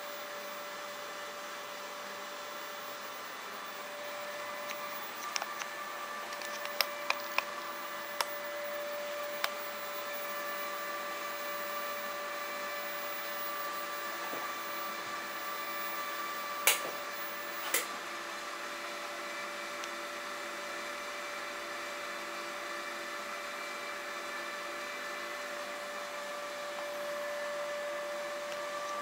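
Steady whir of a small cooling fan with a thin electrical whine from a xenon lamp ballast running a lit xenon short-arc lamp. A run of sharp clicks comes a few seconds in, and two louder clicks about a second apart near the middle.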